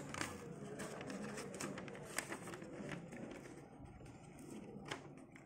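Paper handling on a dot matrix printer's tractor feed: continuous fanfold paper is fitted onto the sprocket pins, giving faint rustling and a few sharp plastic clicks, the clearest about two seconds in and near the end, over a low steady hum.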